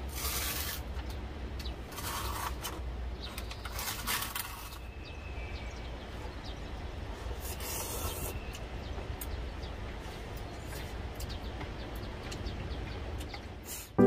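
Food containers and utensils being handled at a small table: several short bursts of rustling and scattered light clicks, over a low steady rumble.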